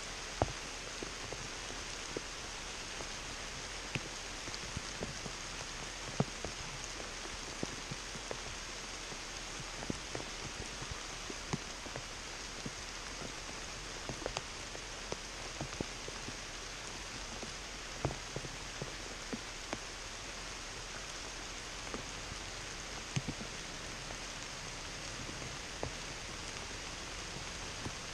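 Light rain pattering on forest leaves: a soft steady hiss with scattered separate drops ticking at irregular moments.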